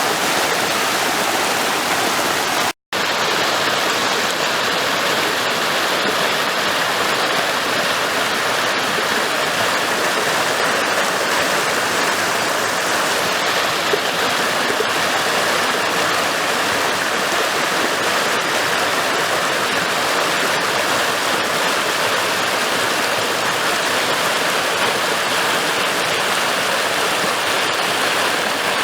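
Steady rush of flowing stream water, with a split-second dropout about three seconds in.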